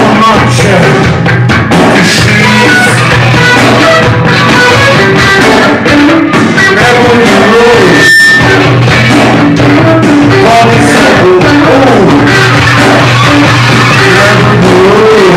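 Live rock band playing loud, with drums, guitar and a male voice singing at the microphone; the sound breaks off briefly about halfway through with a short high tone.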